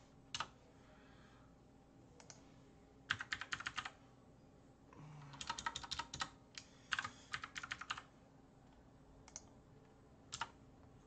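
Computer keyboard typing in three short bursts of rapid keystrokes, with a few single clicks in between.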